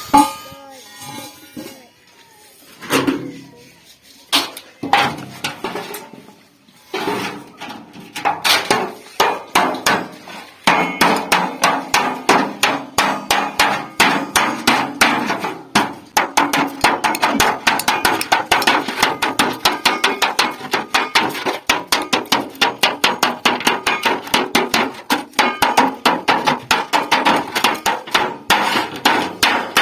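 Hammer beating sheet metal cut from an old refrigerator, shaping it into a pot, each blow ringing. A few scattered blows at first, then steady hammering at about three blows a second.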